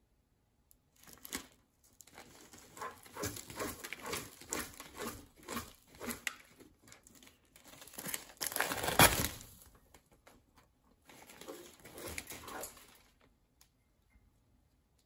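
African grey parrot scratching and pecking through seed husks and food scraps on a newspaper-lined cage floor: paper crinkling and rustling with scattered scrapes and pecks. It comes in spells, loudest about nine seconds in, with a short pause after that and quiet again near the end.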